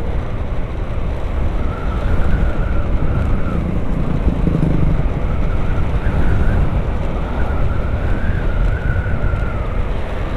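Honda Vario 150 scooter being ridden along a road: a steady low rumble of wind and road noise on the rider's microphone, with a wavering whine that comes and goes.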